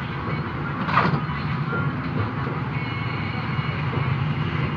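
Steady low background rumble, like passing street traffic, with a single sharp click or knock about a second in.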